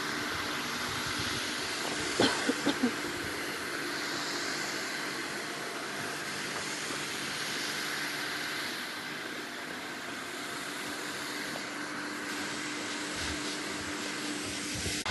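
Snowmaking fan gun running steadily: a continuous hissing drone with a steady hum. About two seconds in, four quick sharp knocks stand out.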